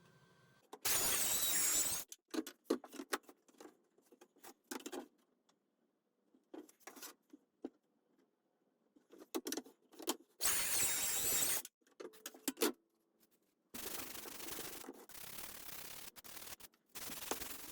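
Sanding plywood parts, heard as rasping strokes about a second long and later as longer runs. Between them come short wooden knocks and clatter as pieces are handled.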